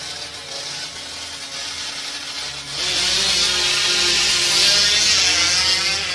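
Two drag-racing motorcycles at the start line. About three seconds in they launch, and their engines rise to a loud, high-pitched wail, easing slightly as they pull away down the strip.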